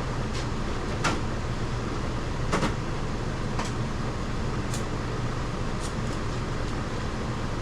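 A handful of light clicks and knocks from tools being handled, spaced a second or so apart, over a steady hum of shop background noise.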